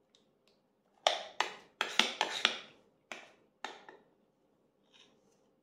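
A metal spoon scraping and clinking against the inside of a ceramic bowl as cake batter is scraped out into the tin: a series of sharp clicks and scrapes from about a second in to about four seconds in.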